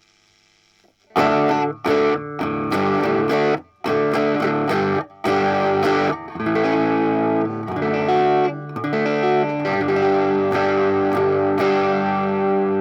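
Electric guitar played through a Bugera V5 tube amp boosted by a Sweet Honey Overdrive pedal, in a crunchy overdriven tone. After about a second of faint amp hum, chords come in with a few short stops, and the last chord is left to ring.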